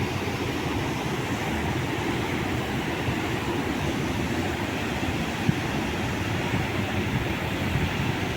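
Strong wind buffeting the microphone over fast-flowing floodwater: a steady, low rumbling rush of noise.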